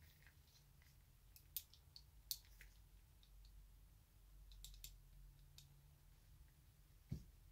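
Scattered sharp metallic clicks of small steel pistol parts being handled: the frame and slide of a disassembled Colt 1908 vest pocket pistol, over a faint low hum.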